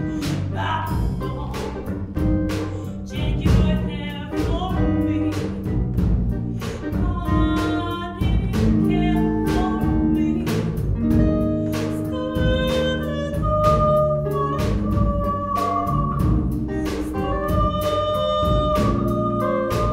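Live jazz ensemble: a female vocalist sings long held notes over a drum kit keeping a steady beat, electric bass and electric guitars.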